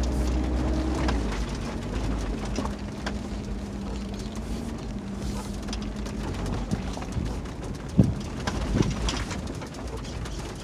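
2020 Kia 4x4's engine humming steadily at low speed, heard from inside the cabin, with tyres on a rocky dirt track giving scattered knocks and rattles. A sharp thump about eight seconds in is the loudest.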